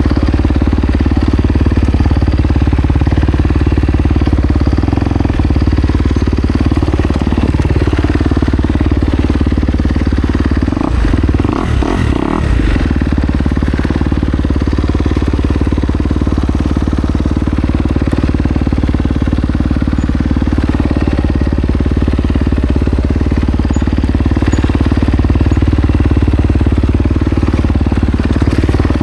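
Kawasaki KX250X two-stroke dirt bike engine running under varying throttle while trail riding, its pitch rising and falling gently. A short cluster of knocks comes a little before the middle.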